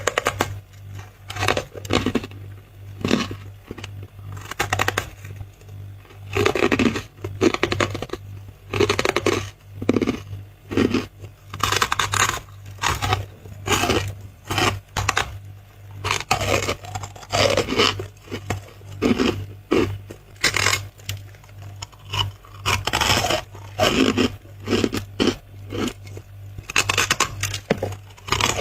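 Close-up bites into soft white freezer frost, crunching and squeaking between the teeth, one bite after another at an uneven pace, with a steady low hum underneath.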